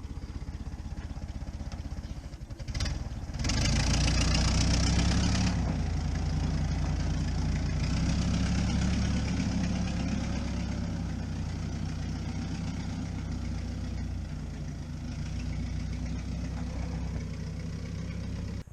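A vehicle engine running with an even low pulse, then revving up sharply about three and a half seconds in and holding a steady higher speed before easing back a little; the sound cuts off abruptly at the end.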